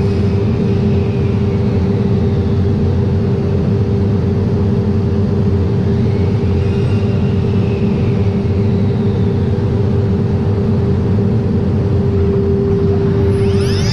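Masterwood Project 415 CNC machining centre running: a loud, steady machine noise with a constant hum. Near the end, rising electronic sweeps come in.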